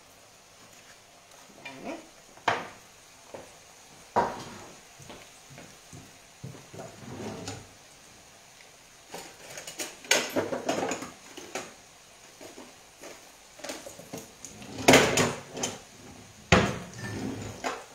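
Dishes and utensils clattering in a kitchen: a fork knocking on a plate and pans and crockery being handled, in separate sharp knocks about two and four seconds in and louder bursts of clatter around ten seconds and near the end.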